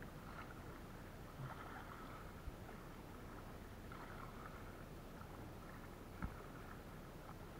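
Faint paddle strokes from a kayak: soft water swishes every second or two over a steady low rumble. A small sharp knock comes about two and a half seconds in, and a louder one about six seconds in.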